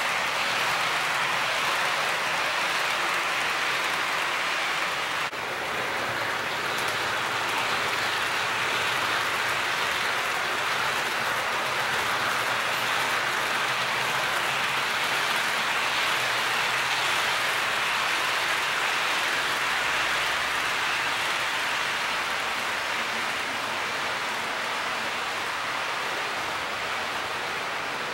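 HO-scale model container train running along its track: a steady rolling hiss of the small metal wheels on the rails, easing slightly near the end as the train moves away.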